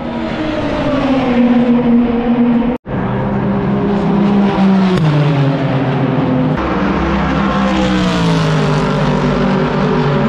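Race car engines running on the circuit as cars drive past, the engine note falling as each goes by, then rising and falling again near the end. The sound drops out for an instant about three seconds in.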